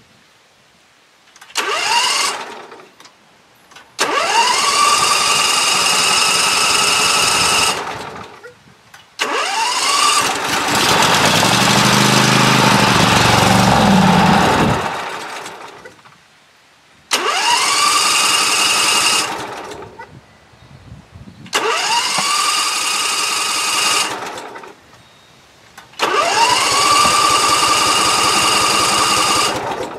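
Great Dane Super Surfer mower engine cranked by its electric starter in six separate bursts, each opening with a rising whine. On the third try, about ten seconds in, the engine catches and runs for a few seconds, then dies. It runs only on gas poured down the intake, a sign that fuel is not flowing through the carburetor.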